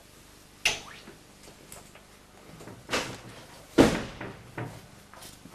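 A few scattered knocks and bumps from people moving around furniture, the loudest just before four seconds in.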